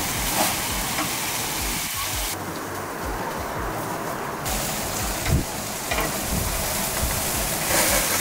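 Meat and skewers sizzling on a gas barbecue grill: a steady hiss, which thins out abruptly for a couple of seconds in the middle.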